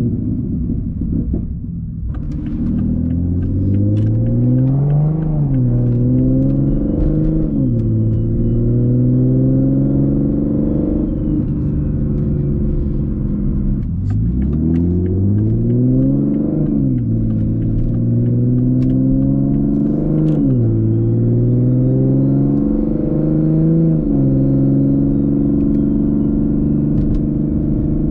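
Exhaust of a modified Toyota GR Supra's turbocharged inline-six with an aftermarket cat-back, heard from inside the closed cabin while driving. The engine note climbs and drops back at each gear change as the car accelerates, and between the pulls it settles into a steady low exhaust drone.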